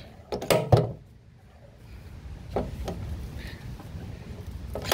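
Dent puller being worked on a pin spot-welded to a car body panel: a quick run of sharp metallic clacks, then a low rumble with a few light clicks and one more sharp clack near the end.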